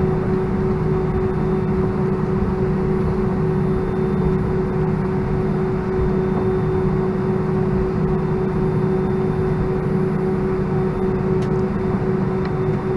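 Airbus A319 cabin noise while taxiing, heard from a window seat: the IAE V2500 engines running at idle as a steady drone with a constant hum.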